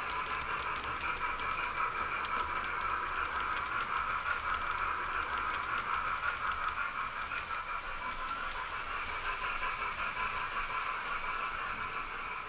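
00 gauge model train, a steam locomotive hauling coaches, running along the track: a steady rolling hiss from the wheels on the rails, sprinkled with fine clicks, slowly getting fainter toward the end.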